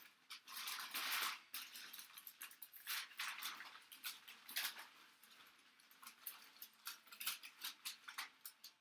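Packaging being handled and unwrapped: irregular crinkling and rustling with many small sharp crackles, loudest about a second in.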